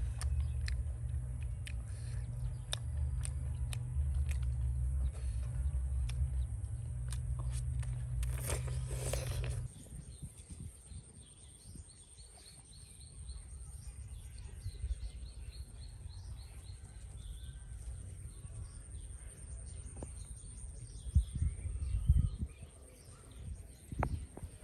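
A loud low rumble with scattered clicks for about ten seconds, ending in a brief whoosh; then birds chirping over a steady high thin tone, with a couple of thumps near the end.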